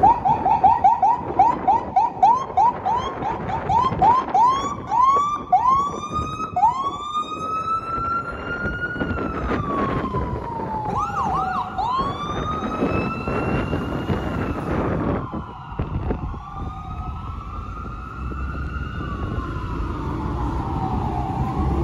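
Fire engines' electronic sirens sounding code 3. A rapid yelp of short rising chirps slows over several seconds into long rising and falling wails, and a second siren overlaps near the end, over engine rumble.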